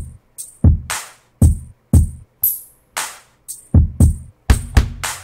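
A programmed hip-hop drum pattern playing back from an Akai MPC Live sequence: punchy kick drum hits, two longer noisy backbeat hits, and bright cymbal ticks, all locked to the grid.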